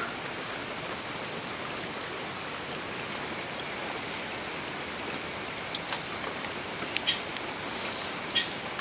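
Crickets chirping in a steady high chorus with a faint even pulse, and a few faint clicks near the end.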